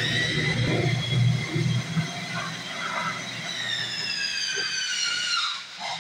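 A long, high whistling tone with several overtones, slowly falling in pitch for about five seconds before it stops, over a low hum.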